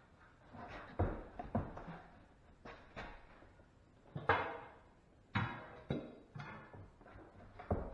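Irregular knocks and thuds, about ten in a row, each sudden and dying away quickly.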